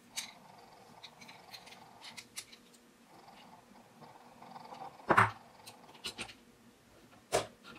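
Precision screwdriver working the small handle screws of a folding knife: scattered light clicks and ticks of the driver tip and metal parts, with two louder short sounds about five and seven seconds in.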